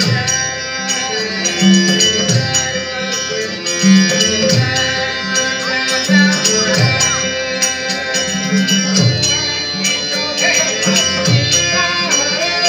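Live Dashavatar devotional music for an abhang: harmonium holding steady notes, a low drum struck in a regular beat about once a second, and small hand cymbals clicking quickly, with a voice singing in places.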